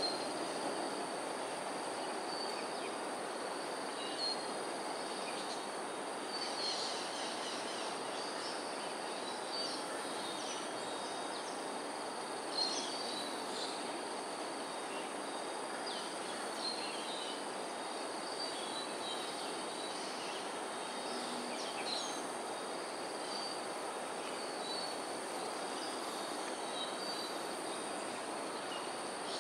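Outdoor ambience: a steady background hiss with a thin, steady high insect drone, and scattered short, faint high chirps of small birds a few times.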